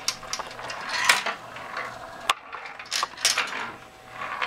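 Steel balls rolling, clicking and rattling through the grooves of a wooden spiral-track kinetic sculpture. The rattling swells about a second in and again around three seconds, with a single sharp click a little past two seconds.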